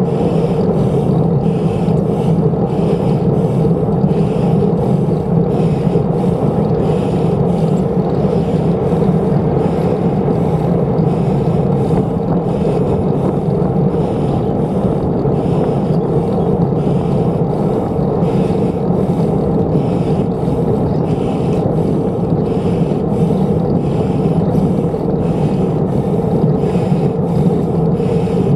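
Steady riding noise from a bicycle on the move: wind on the microphone and tyres rolling, with a soft pulse repeating about every three-quarters of a second.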